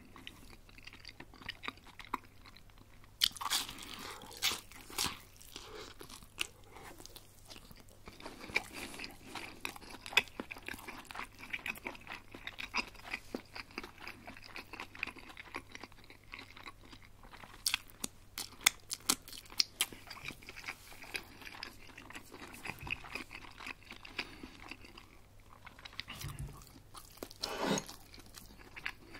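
Close-miked eating of crispy breaded chicken schnitzel: steady chewing with wet mouth clicks, and louder crunching bites a few seconds in, around the middle and near the end.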